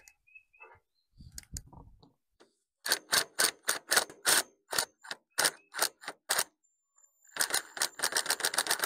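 Ratchet wrench clicking as it is worked in short strokes, about three clicks a second, then a faster run of clicks near the end.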